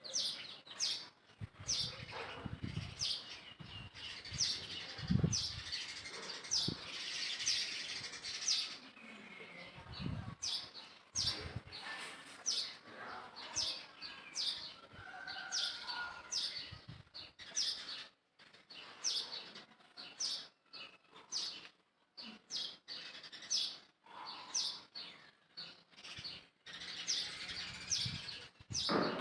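Small birds chirping over and over in quick, short calls, with a few dull low thumps in the first ten seconds.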